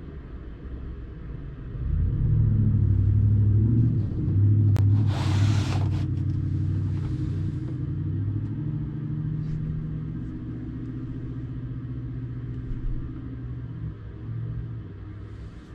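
A vehicle engine comes up about two seconds in and then runs steadily with a low hum. A short hiss sounds about five seconds in.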